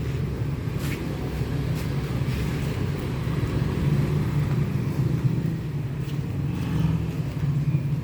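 Car engine idling steadily, with a few faint clicks.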